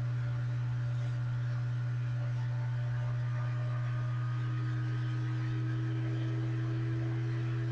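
Steady low electrical hum with a few faint, constant higher tones above it.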